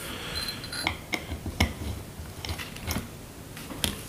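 Scattered small clicks and ticks of screws being started by hand into the housing of an LPG reducer during reassembly, irregular, several over a few seconds.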